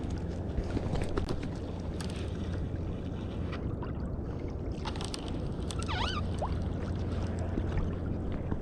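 Water washing and sloshing against a kayak hull, with wind on the microphone and scattered small clicks and knocks; a brief wavering squeak about six seconds in.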